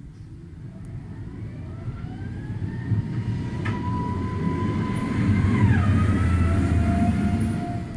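Wheel-loader snowplow with a V-blade driving past close by: its diesel engine rumble grows louder as it approaches, with a whine that rises in pitch and then drops sharply as the machine passes about six seconds in, fading near the end.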